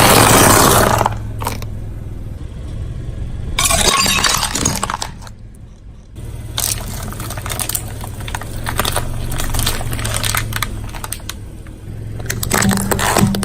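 A car's tyre rolling over and crushing crunchy objects: repeated bursts of crackling and snapping, with the car's engine running low and steady underneath.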